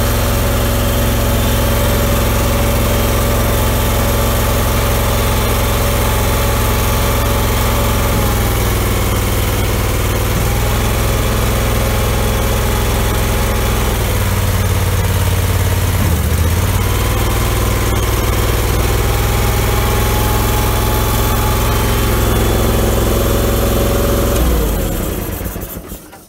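The 25 hp Kohler twin-cylinder gas engine of an Allmand TLB-25 mini backhoe running steadily, its pitch shifting a few times as the load changes, then dying away near the end. With new head gaskets fitted, the engine is running well.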